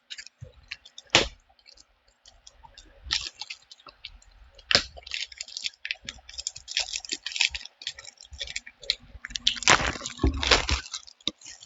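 Pokémon TCG tin being unwrapped and opened by hand: irregular clicks, cracks and crinkling of its packaging, with a louder burst near the end.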